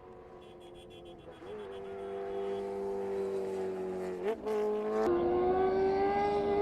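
A racing vehicle's engine running at high revs, its note holding fairly steady and growing louder. About four seconds in, the pitch flicks up and drops back like a gear change, and just after five seconds the engine gets suddenly louder.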